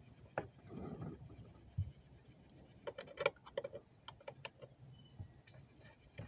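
Light metallic clicks and taps as hands adjust the tailstock of a micro lathe, with a quick cluster of ticks about three to four and a half seconds in.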